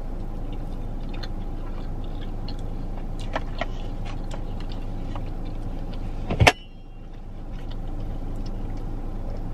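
Steady low hum of a car cabin, with a few faint clicks. A sharp knock comes about two-thirds of the way in, after which the hum dips and slowly comes back.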